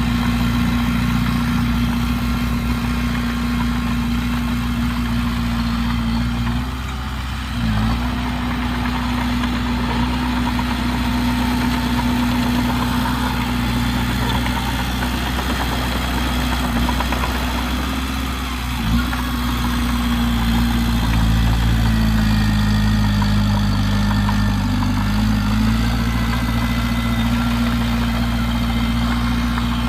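Heavy diesel engine of earthmoving machinery running steadily, briefly dipping about seven seconds in and again near nineteen seconds, with its note shifting for a few seconds after about twenty-one seconds.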